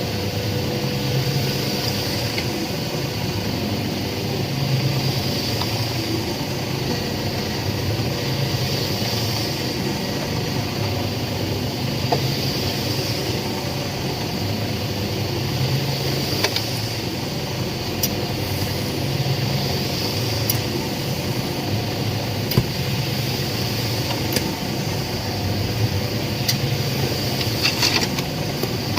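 Concrete mixer machine running steadily, its low hum swelling and fading every few seconds, with scattered light clicks and knocks.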